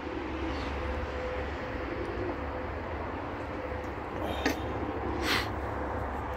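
Outdoor garden ambience: a steady low rumble, with a single short, harsh bird call about five seconds in.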